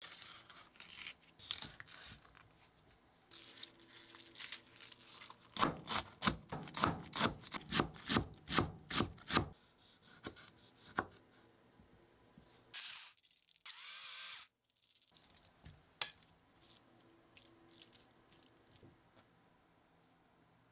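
Global chef's knife cutting cabbage on a cutting board: a few scattered cuts, then from about six seconds in a quick run of a dozen or so chopping strokes, about three a second, as the cabbage is shredded. A few separate cuts follow as cherry tomatoes are halved, then a brief hiss about two-thirds through and faint light taps near the end.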